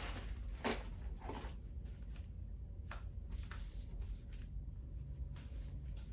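Wet wipes rubbing and rustling over a power drill and its Milwaukee dust-collection attachment while they are wiped down to decontaminate them. About eight short, soft strokes, unevenly spaced, over a low steady hum.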